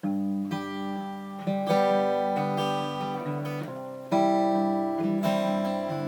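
Acoustic guitar strumming chords as an instrumental introduction, starting abruptly with the first chord, with strong fresh strums about a second and a half in and again about four seconds in, each left to ring.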